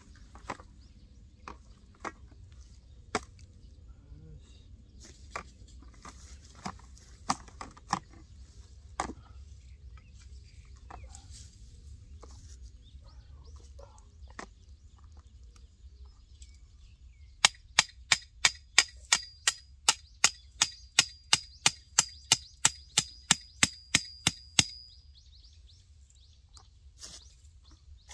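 Hammer striking the top of a steel fence pole: scattered knocks at first, then, well past the middle, a fast, even run of about two dozen ringing metallic blows, roughly three a second, that stops abruptly.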